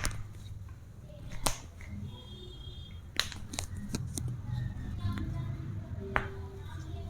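Sharp cracks and pops of neck joints during a chiropractic adjustment. The loudest comes about a second and a half in, with a cluster of three between three and four seconds and another about six seconds in.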